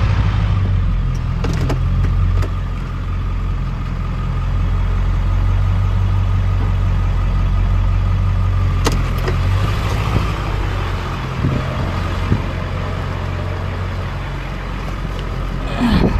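Truck engine running steadily at low speed, with a faint steady whine and a couple of sharp clicks, about a second and a half in and again near nine seconds.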